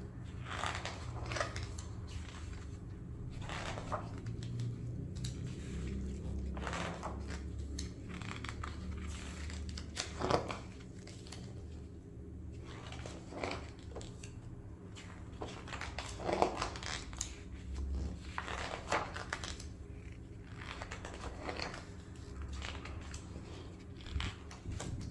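Pages of a large hardback photo book being turned one after another: papery rustles and swishes every couple of seconds, a few of them sharper slaps as a page falls flat.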